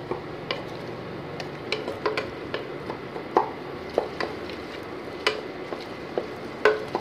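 Wooden spoon stirring chopped tomatoes and onions in a pressure cooker pan, with irregular knocks and scrapes of the spoon against the pot over a soft sizzle of frying.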